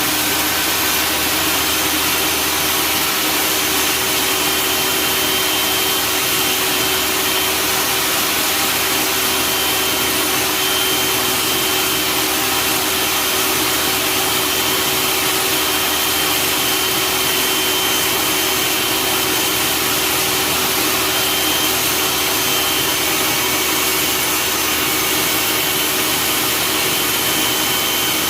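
Table saw running steadily, its roughly 60-tooth general-purpose blade cutting through a sheet of plexiglass that is fed slowly, giving a continuous motor whine and a rasping cut.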